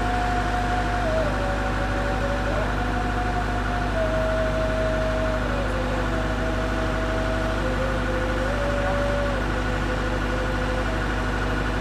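Case Super L backhoe loader's diesel engine running steadily, with a whine over it that steps up and down in pitch every second or two.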